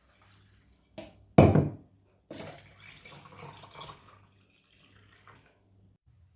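Liquid splashing and pouring: a sudden loud splash shortly after the start, then about two seconds of uneven pouring.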